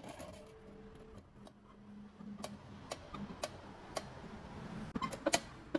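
Sharp metal clicks, spaced about half a second apart, as the rebar lever of a homemade screw vise is worked and its threaded rod and nuts knock and turn. The clicks come a little closer together near the end.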